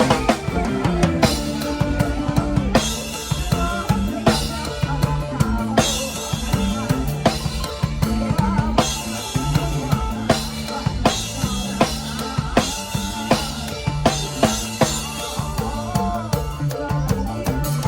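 Isan toei lam dance music with a steady drum-kit beat and bass.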